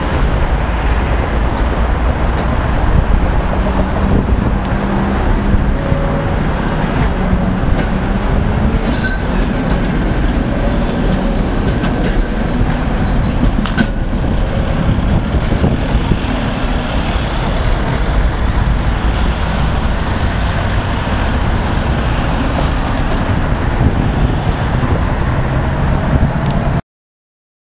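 Tatra T5C5 trams running along street track with heavy low rumble and wheel noise, and a faint motor whine that drifts in pitch. Road traffic runs underneath. Two sharp clicks come about a third and halfway through, and the sound cuts off abruptly near the end.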